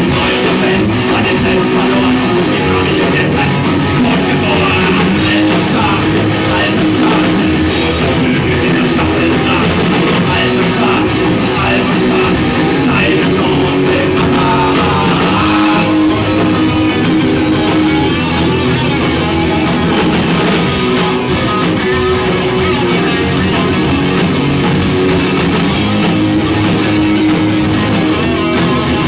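A rock band playing live: electric guitars, bass guitar and drum kit, loud and unbroken.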